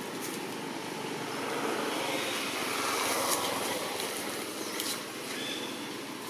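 Steady background noise of a motor vehicle passing by, swelling in the middle and fading toward the end.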